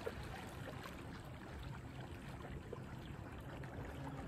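Small lake waves lapping and splashing, a soft steady wash with scattered tiny splashes.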